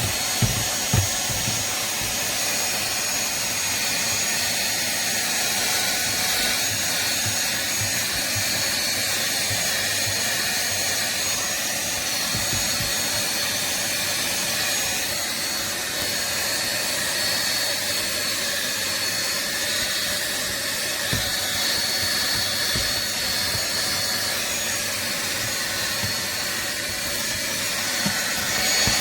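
SunSare cordless stick vacuum cleaner running steadily, its motor giving a continuous high whine over a rushing hiss. A few low knocks sound near the start and again about two-thirds of the way through.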